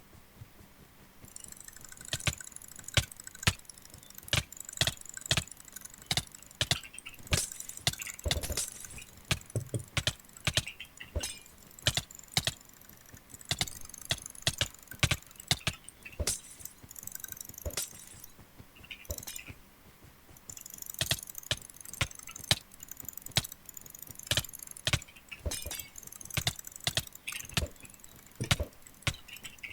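Computer mouse buttons clicked rapidly in quick runs of sharp clicks with a light rattle, as with double- or triple-click macro clicking; the clicking starts about a second in.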